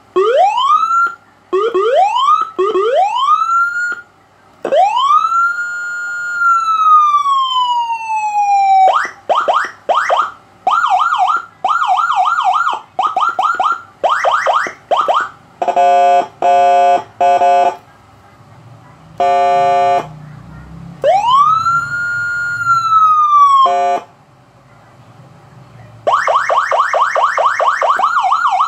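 Liyi CJB100LYA electronic ambulance siren module sounding through its speaker, switched through several tones: quick rising whoops, a slow wail rising and falling, a fast yelp, and short steady horn blasts. It ends on a fast yelp.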